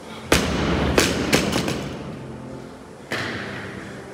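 Loaded barbell with rubber bumper plates dropped from overhead onto rubber gym flooring: a loud thud, then a few quicker bouncing knocks dying away over the next second and a half. A second, lighter thud comes about three seconds in.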